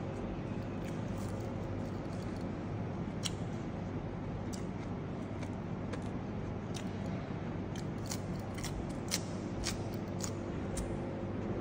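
Crisp clicks and crunches of someone chewing raw vegetables, coming thickest in the second half, over a steady background hum.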